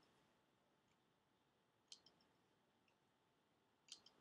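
Near silence broken by two small clusters of faint clicks from a computer mouse, about two seconds apart.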